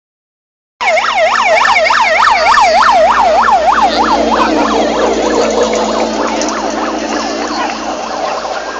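A siren in a fast yelp, its pitch sweeping up and down about three times a second. It starts abruptly just under a second in and grows less distinct after about four seconds under a steady wash of noise.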